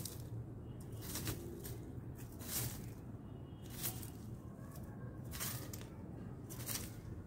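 Dry leaf litter rustling and crackling as a male common blackbird forages, tossing leaves aside with its beak: short irregular rustles, roughly one a second.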